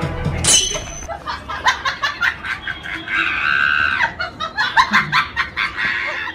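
Pomeranian puppies yipping and squealing: a run of short high-pitched cries in quick succession, with one longer squeal about three seconds in.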